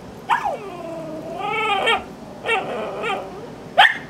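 Dog whining in long cries that slide down and up in pitch, then one short, sharp bark near the end, the loudest sound. The dog is vocalising while being cued to bark on command.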